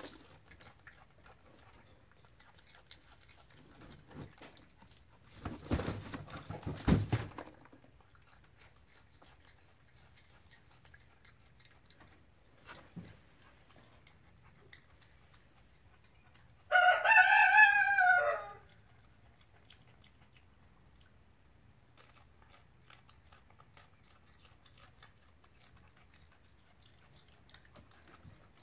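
A rooster crowing once, a call of about two seconds with a rising-and-falling pitch, past the middle. Earlier, a few seconds of rustling and knocking.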